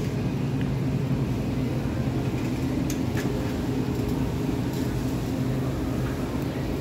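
Steady low hum from refrigerated display cases, with a couple of light clicks about three seconds in.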